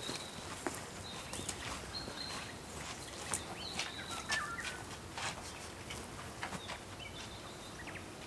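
Birds calling outdoors: thin, high, steady whistles about half a second long, repeated several times. Scattered light clicks and knocks run alongside them.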